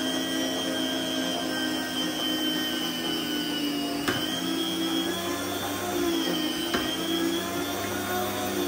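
Small electric home meat slicer running: a steady high motor whine over a lower hum, the pitch sagging briefly a couple of times as the spinning blade cuts thin slices of roast beef. A few light ticks come through.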